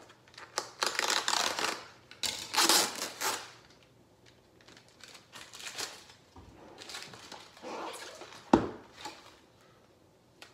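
Packing material rustling and crinkling as it is handled, in two loud bursts over the first few seconds, then lighter rustling, with one sharp knock about eight and a half seconds in.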